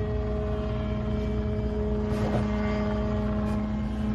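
Mosquito ultralight helicopter flying overhead, its engine and rotor running at a steady, unchanging pitch.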